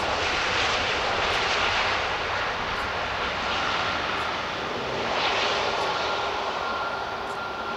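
Airbus A330 airliner's jet engines on its landing roll: a loud, steady rush of engine noise that slowly fades, with a faint steady whine coming in about halfway through.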